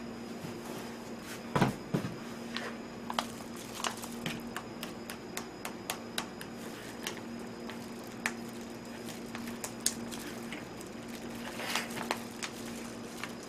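Disposable plastic gloves crinkling and clicking irregularly as hands work in them, with one louder knock about one and a half seconds in, over a steady low hum.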